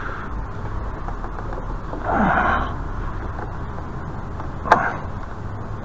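Hands working a part at a scooter's handlebar over steady low background noise: a brief soft scrape-like noise about two seconds in, then a single sharp click near the end as the part goes into place.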